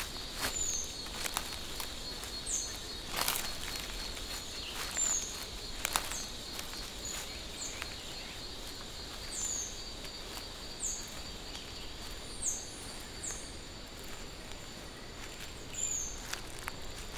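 Tropical forest ambience: a steady high insect drone, with short high chirps, each falling in pitch, repeating about once a second. A few sharp snaps or crackles are scattered through it, the loudest about three and six seconds in.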